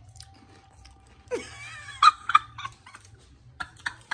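A person's wordless vocal outburst, a laughing squeal with a wavering pitch and two loud peaks, starting about a second in, followed by a few sharp clicks near the end.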